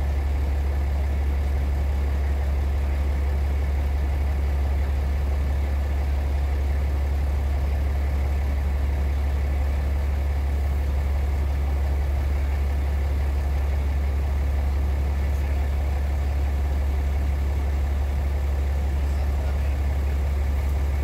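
Heavy earthmoving diesel engine idling steadily, a constant deep rumble with no change in speed.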